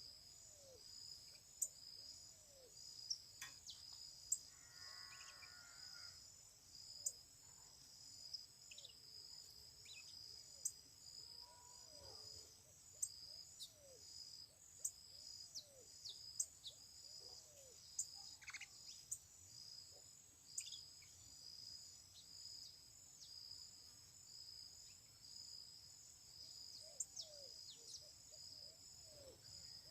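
Steady high-pitched drone of chirping insects, such as crickets, with scattered short bird chirps and sharp clicks over it.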